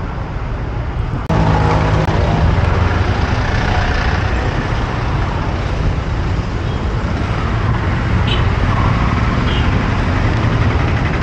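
Steady low rumble of road traffic or a vehicle engine running, jumping abruptly louder about a second in.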